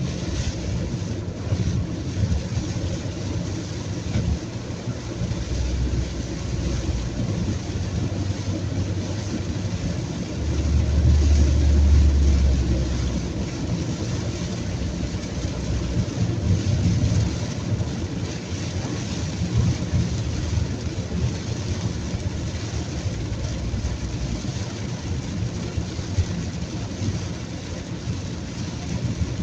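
Car driving in very heavy rain, heard from inside the cabin: steady tyre and engine noise with the hiss of rain on the car. A deeper rumble swells for a couple of seconds about ten seconds in.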